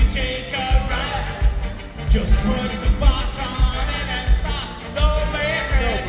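Live soul band playing, with a lead vocal over a steady kick-drum beat, guitars and a horn section.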